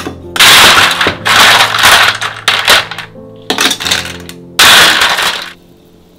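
Ice cubes scooped from a tray and dropped into a tall glass mug, clattering against the glass and each other in about five loud scoopfuls.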